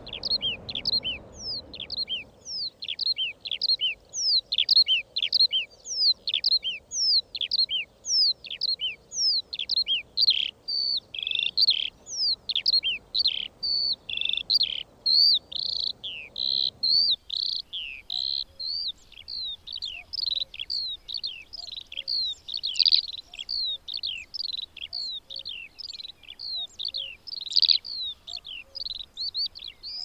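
Eurasian skylark singing its long flight song: an unbroken stream of rapid, high chirps and trills. A faint low hiss underneath drops away about halfway through.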